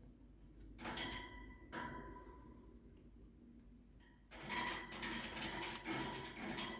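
Metal wire cage bars clinking and rattling as a cockatiel climbs on them: a couple of ringing clinks about a second in, then a busy run of clinks and rattles from about four seconds in.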